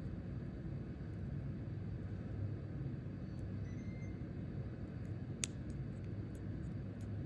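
Steady low room hum with a few faint, sharp clicks, the clearest about five seconds in: a cutting tool snipping through plastic bird netting wrapped around a snake.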